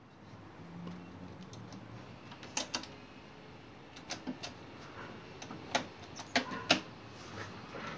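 Piano-key transport buttons of a Gradiente S96 cassette deck being pressed and released: a series of sharp mechanical clicks in small groups, the loudest near the end.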